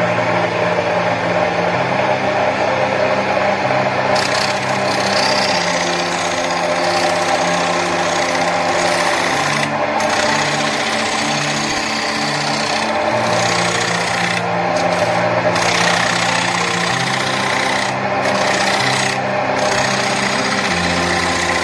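Lathe turning a large wooden disc, the tool cutting into the spinning wood with a steady rasping hiss as shavings fly. The hiss brightens about four seconds in and cuts out briefly several times in the second half.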